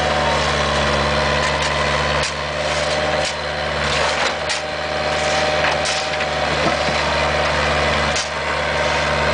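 Bobcat 430 ZHS mini excavator's diesel engine running steadily, its note dipping briefly a few times under load, with scattered clanks and scrapes of the bucket breaking up asphalt.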